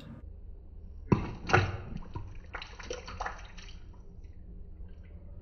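Water splashing and dripping as a small water-filled plastic baggie is bitten and popped over a sink: a couple of sharp splashes about a second in, then smaller splashes and drips for about two seconds before it settles.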